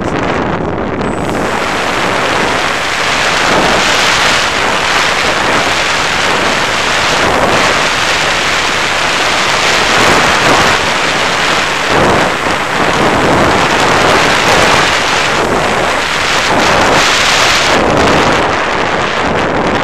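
Loud, steady rush of air over the microphone of an action camera carried on an FPV Raptor model plane in flight, swelling and easing a little as it banks.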